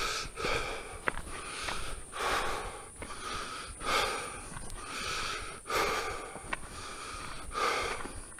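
A hiker breathing heavily while walking, with a loud breath roughly every second and a half to two seconds.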